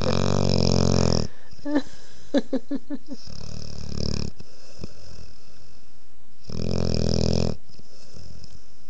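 A sleeping 5½-month-old Boerboel puppy snoring. A long, loud snore at the start is followed by a few brief clicking sounds and a lower, softer breath about three seconds in, then after a pause another loud snore near the end.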